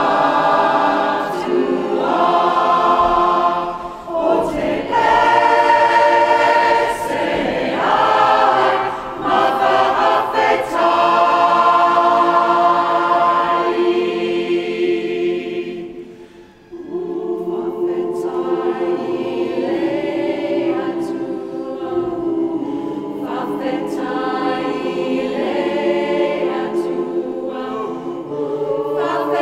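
Mixed-voice community choir singing sustained chords, with a short break about two-thirds of the way through, after which the singing resumes more softly.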